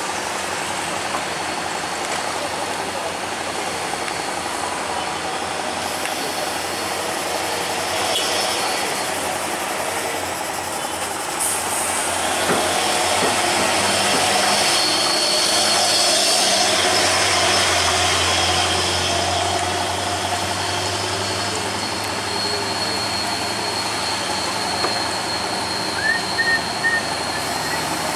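Road traffic on a steep mountain hairpin: cars and trucks passing close and climbing, engines running and tyres on the wet road. A heavier engine hum swells about halfway through, and a few short high-pitched sounds come near the end.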